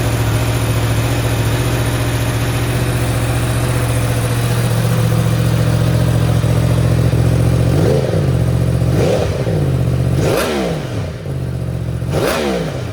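2023 Yamaha R1M crossplane inline-four on its stock exhaust, idling steadily just after a cold start, then revved in four quick throttle blips over the last five seconds. The factory exhaust keeps it quiet, likened to a lawnmower.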